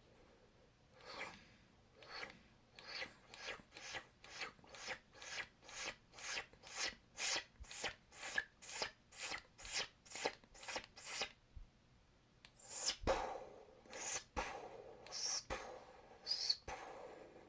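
Mouth-made laser sound effects: a quick, even run of short hissing bursts, a little over two a second, then after a pause a few louder, irregular ones.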